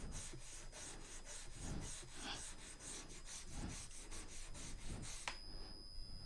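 A brush scrubbing a fridge's rubber door gasket coated in a cleaning paste, in quick, even back-and-forth strokes, about five or six a second. The scrubbing stops about five seconds in.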